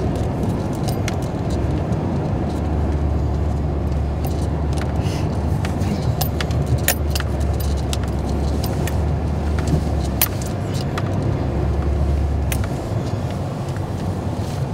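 GMC pickup truck driving, heard from inside the cab: a steady engine and road rumble, with a deeper engine drone from about two seconds in that eases near the end. Frequent light clicks and rattles, like loose keys jangling, run over it.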